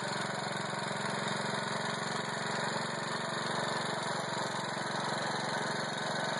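1948 Baird Beaver garden tractor's small engine idling steadily.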